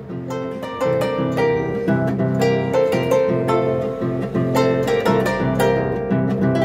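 Solo harp played by hand: a stream of plucked melody notes, several a second, over ringing low bass strings.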